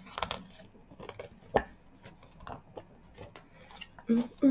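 Scattered light clicks and taps of small hard items and packaging being handled on a tabletop, the sharpest about one and a half seconds in. A woman starts humming near the end.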